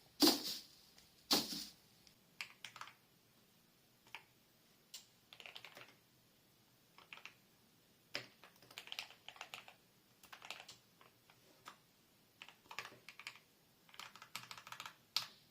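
Irregular light clicks and scuffs of the restored AKG K553 headphones being handled, with two sharper clicks in the first second or so and small clusters of taps after that.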